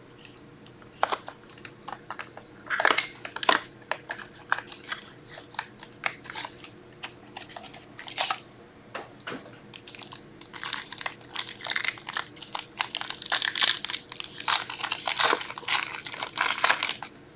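Plastic shrink-wrap and a foil hockey card pack being crinkled and torn open by hand, with a thin cardboard box being opened: a run of sharp crackles and rustles that grows dense about ten seconds in and runs until near the end.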